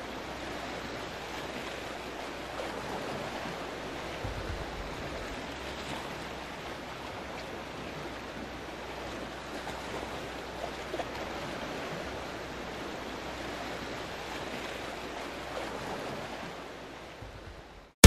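Sea waves washing steadily, an even rushing of water that fades out near the end.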